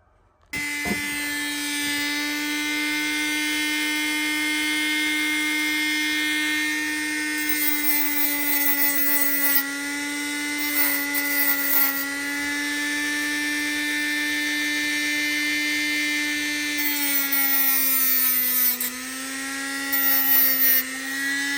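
A small electric power tool starts about half a second in and runs at a steady high speed, buffing the corroded plunger of a carburettor anti-backfire fuel shut-off solenoid. Scratchy rasps come through several times as the part is pressed to it, and the hum sags in pitch briefly near the end under load.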